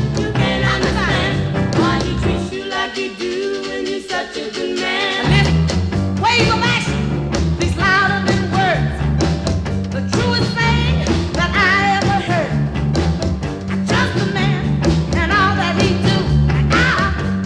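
Early rhythm-and-blues rock and roll record playing: a full band with bass and drums and pitched lines over the top. The bass and drums drop out for about three seconds near the start, then the full band comes back in.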